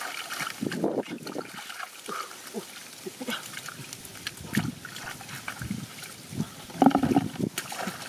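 Hands working in shallow mud and water: an irregular run of wet squelches and splashes, loudest about seven seconds in.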